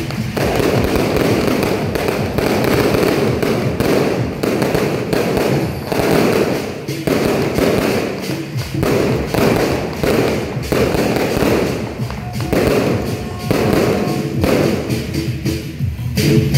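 A string of firecrackers going off continuously, rapid cracks running together into a dense crackle that rises and falls in bursts.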